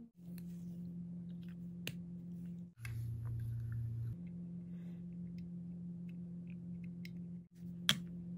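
Small plastic novelty pens being handled: faint ticks and rustles over a steady low hum, with a sharp click near the end as the pizza-slice pen's cap comes off.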